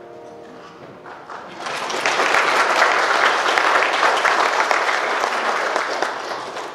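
Congregation applauding: the clapping swells in about a second and a half in, holds, and dies away near the end.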